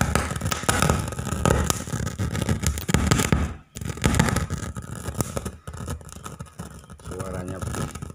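Sharp CBOX ASP1001 active speaker putting out a faulty, thunder-like noise: an irregular crackling rumble that surges and fades and cuts out briefly about three and a half seconds in. It is an amplifier fault noise that comes and goes and does not follow the volume control.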